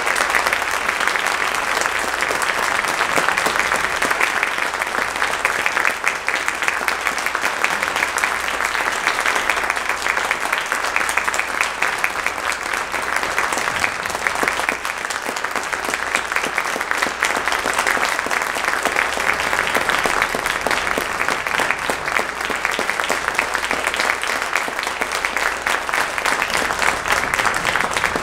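Audience applauding, a steady, unbroken mass of clapping.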